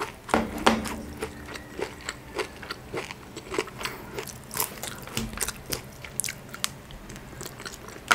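Close-up eating sounds from a Cajun seafood boil: crab shell crackling and meat being pulled apart by hand, mixed with chewing. There are many short, irregular clicks and crunches throughout.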